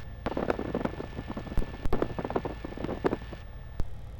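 Piper Arrow's engine running at low power during a slow taxi, a steady low drone heard from inside the cockpit. Scattered sharp clicks and faint muffled sounds lie over it.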